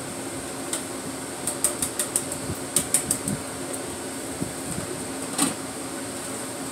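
Canned whole peeled tomatoes sliding out of a large metal can into a plastic tub, with a run of light clicks and taps of the can against the tub in the middle and one more near the end, over a steady fan hum.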